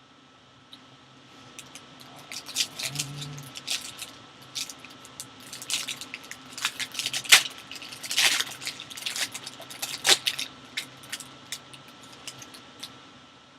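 Crackling and crinkling of plastic shrink-wrap and cardboard as a sealed box of football trading cards is unwrapped and opened by hand, in a quick irregular run of sharp crackles that thins out near the end.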